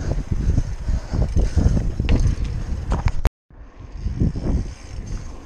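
A BMX bike, the Mafia Blackjack, being ridden: a steady low rumble with scattered short knocks and rattles. The sound cuts out suddenly for a moment about three seconds in, then resumes.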